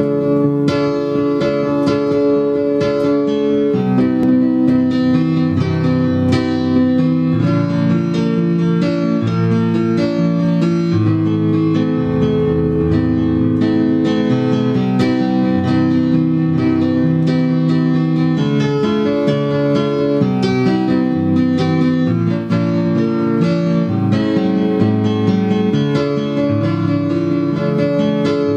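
Digital piano played in a steady run of chords and notes, an instrumental lead-in to a song, with guitar heard along with it.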